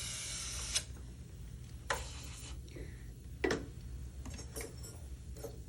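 Sharp clicks and taps of metal dental hand instruments being handled and set down: three louder clicks about a second apart, then lighter ticks near the end, over a low steady hum.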